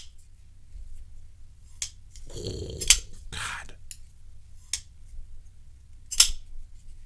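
Vero Engineering Synapse XL folding knife, a bolster lock running on bearings, being swung open and shut: about five sharp metallic clicks as the blade locks open and snaps closed, with a softer scraping rub during the blade's travel around the middle. The owner takes the rub for something in the knife rubbing, though not the blade, which is centred; the pivot has just had a dab of lube.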